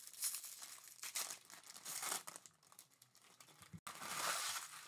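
Foil wrapper of a Topps Series 1 baseball card jumbo pack being torn open and crinkled by hand: several short rustles, then a longer crinkle about four seconds in.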